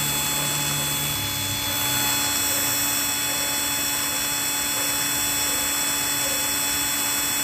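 Electric drill running at a steady speed, its motor whining evenly, while its bit grinds a groove into the inner face of a scooter's clutch bell, with a continuous scraping noise underneath.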